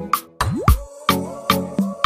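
Background music with a steady beat of sharp drum hits over bass notes, and a bass note that glides in pitch about half a second in.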